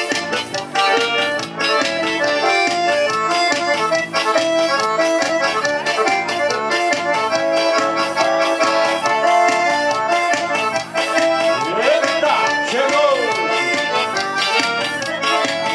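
Live forró music: an accordion playing the melody over a steady percussion beat, with no singing. A voice calls out briefly about twelve seconds in.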